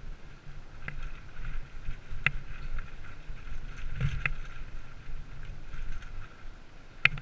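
Downhill mountain bike rolling over a rough dirt trail, heard from a helmet-mounted camera: a steady rumble of wind and tyres, with several sharp rattling knocks from the bike over bumps, the loudest near the end.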